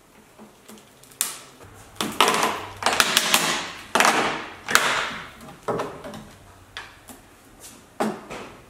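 Cut-out section of an Alfa Romeo GT's rusted outer sill being worked loose and pulled away by hand: a run of sharp, irregular sheet-metal scrapes and clanks, thickest and loudest in the middle.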